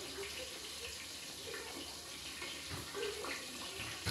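Fish sinigang boiling briskly in a pan on a gas burner: steady bubbling.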